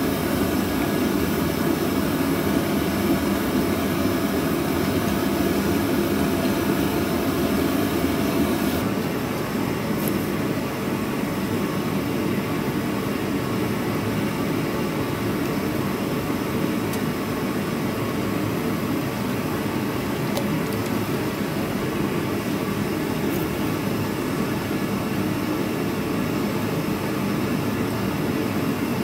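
Forge running with a steady, even rushing noise. About nine seconds in, the sound shifts and its hiss becomes a little weaker.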